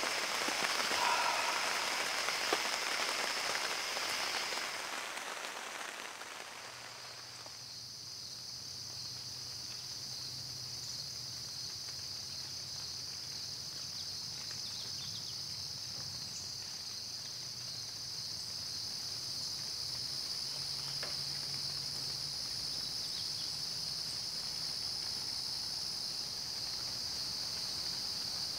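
Steady rain fades out over the first several seconds and gives way to a steady, high-pitched chorus of insects.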